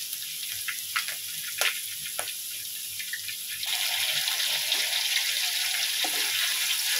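Hot oil sizzling in a steel wok, with a few sharp taps as an egg is cracked, then a louder sizzle from a little past halfway as the raw egg drops into the oil.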